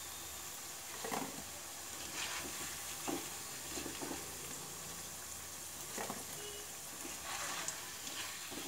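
Small boiled potatoes sizzling steadily in hot oil in a nonstick kadhai, fried golden brown. A slotted spatula knocks and scrapes in the pan a few times as they are scooped out.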